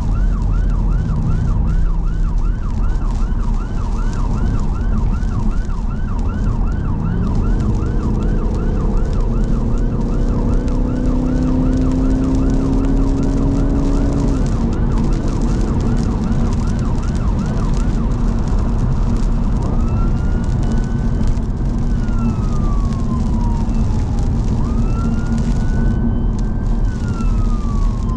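Emergency response car's siren on a fast yelp, about three sweeps a second, switching after roughly 18 seconds to a slower wail that rises and falls. Under it is steady road and tyre rumble, and midway the car's engine note climbs under acceleration, then drops.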